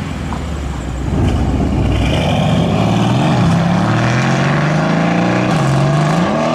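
Mercedes-Benz CLS 63 AMG V8 engine accelerating hard. It starts as a low rumble and gets louder about a second in, then its pitch climbs, drops back twice and climbs again, as it pulls through the gears.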